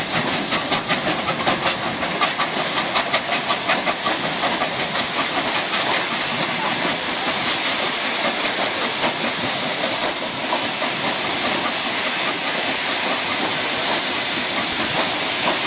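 Double-headed steam locomotives working a passenger train away from the station: quick, regular exhaust chuffs for the first few seconds that then merge into a steady hiss and rumble as the train gathers speed.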